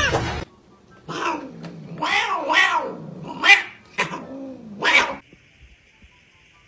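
Domestic cat yowling: a string of about five drawn-out calls, each rising and falling in pitch, over about four seconds, then a faint high hum.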